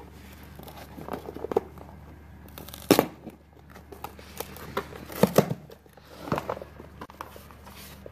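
Cardboard toy box being pried open by hand, its flaps and cardboard insert pulled and torn: scattered rustles and crackles, with sharp snaps about three seconds in and a cluster of them around five seconds.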